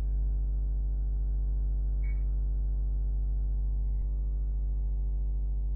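Steady low electrical hum with a stack of even overtones: mains hum on the recording.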